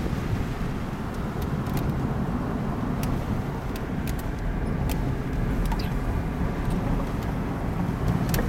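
A car in motion heard from inside the cabin: a steady low rumble of road and engine noise, with a few faint clicks.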